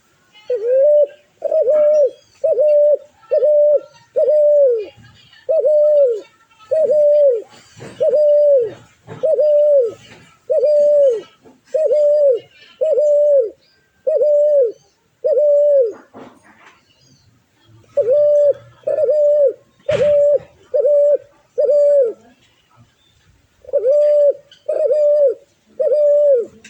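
A bird calling a long series of loud, hooting notes, each rising then dipping slightly in pitch, about one a second. The notes come in three runs, with short pauses around the middle and near the end.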